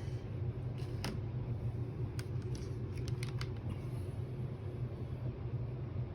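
A few light clicks and taps of small repair tools and phone parts being handled on the bench, over a steady low hum.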